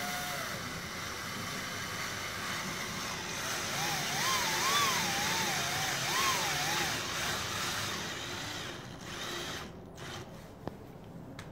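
Cordless drill/driver running as it bores into wooden crate slats, a steady whirr that stops about nine and a half seconds in, followed by a single click.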